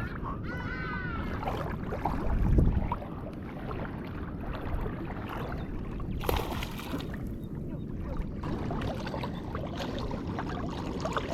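Waves washing on a beach, a steady rushing noise, with wind hitting the microphone in a louder gust about two and a half seconds in.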